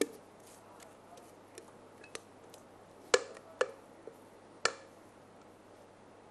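Sharp metallic knocks and clicks of a steel mixing bowl and spatula against a metal cake pan as cake batter is poured and scraped in. One knock comes at the start and a few light ticks follow, then three louder knocks come between about three and five seconds in.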